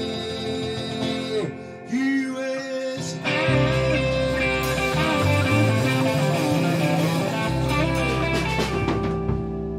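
A live band playing bluesy rock: electric and acoustic archtop guitars with drums. It gets louder and fuller about three and a half seconds in, when low bass notes come in.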